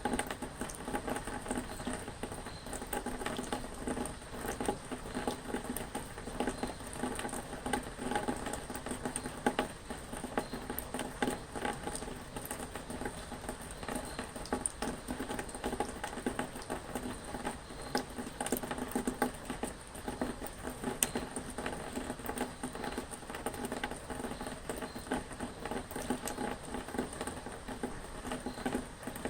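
Steady rain pattering, a dense run of small drop ticks that keeps on without a break.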